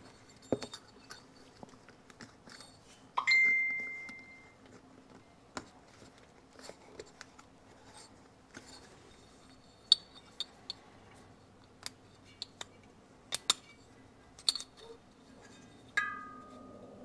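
Light metal clicks and clinks from a two-stroke piston and its piston ring being handled and fitted. There are two short ringing pings, one about three seconds in and one near the end.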